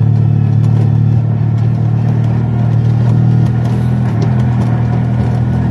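Engine of the vehicle being driven, running steadily at cruising speed: an even low drone with road noise.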